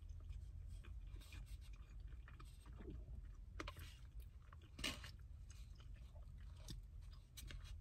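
Quiet chewing, with a plastic spoon scraping and clicking in a foam cup; the loudest click comes about five seconds in. A low steady hum runs underneath.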